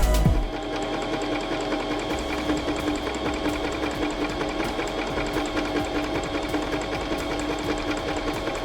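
Pfaff Element 1090s electric sewing machine running steadily at an even speed: a motor hum with rapid, regular ticking.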